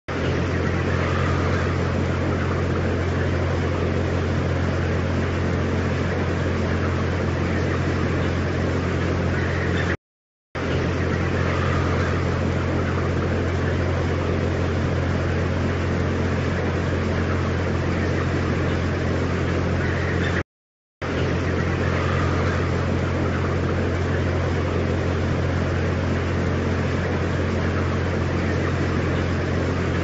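Steady low mechanical hum with an even hiss over it, broken by two abrupt half-second silences about ten seconds apart.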